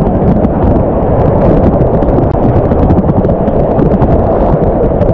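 Whitewater rapids rushing and churning loud and close around a kayak, with splashes and spray crackling through, and wind buffeting the microphone.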